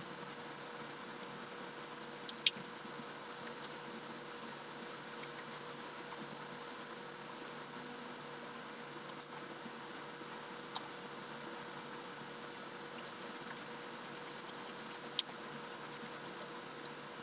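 Hand ratchet clicking in quick runs as long Torx bolts are backed out of a brake vacuum pump, with a few single sharp metal clinks of the tool. A faint steady hum lies underneath.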